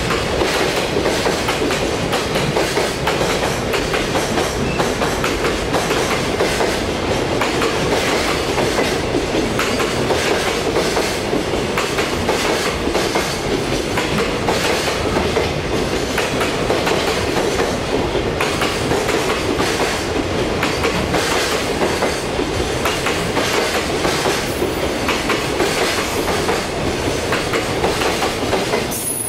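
Container freight train's flatcars rolling past at speed, a steady loud rumble with repeated clacks of the wheels over rail joints.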